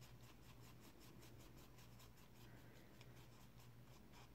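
Faint, quick swishing of a paintbrush scrubbing watercolour paint around a plastic palette well, about six strokes a second, over a steady low hum.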